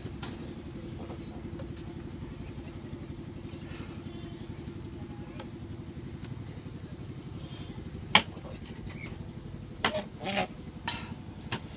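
Small engine running steadily at idle. A sharp knock comes about eight seconds in.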